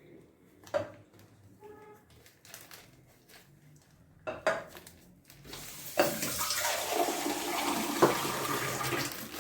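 Sugar being poured over cut fruit: a steady, even hiss that starts about halfway through and lasts a little over three seconds. A few light clicks come before it.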